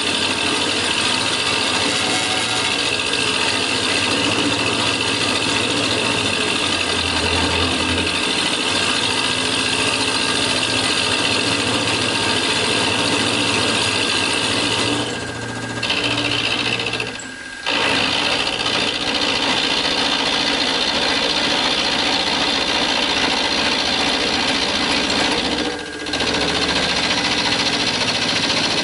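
Benchtop mini mill (a PM-25MV clone) end-milling a cast iron block under liquid coolant: a steady, high cutting noise over the spindle motor. It eases off briefly twice around the middle and once near the end.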